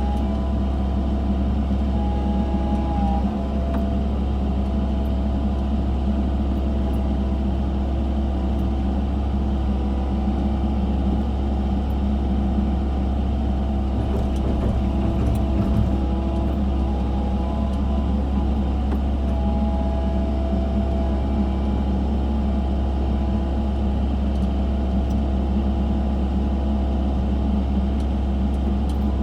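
Excavator engine running steadily under work, a constant low rumble with a higher whine that comes and goes briefly a few times.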